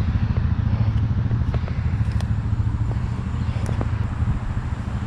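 An engine running steadily at a low idle, with a few faint clicks and taps over it.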